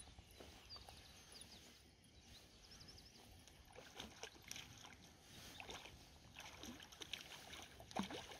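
Faint water sloshing and lapping with small scattered knocks, the loudest near the end, and a few faint high bird chirps.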